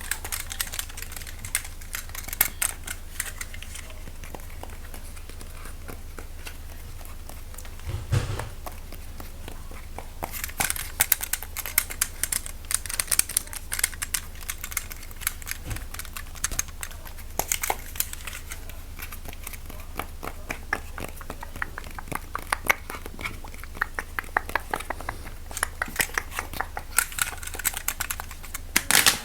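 Close-miked ASMR trigger sounds: quick small clicks, taps and crinkles of objects being handled, thinner for a few seconds with one low thud, then busier again, over a steady low hum.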